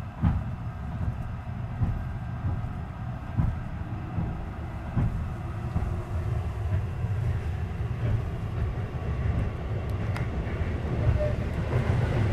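Cabin of a Keihan 8000 series limited-express train running at speed: a steady low rumble with a wheel knock on the rails about every second and a half, growing a little louder near the end.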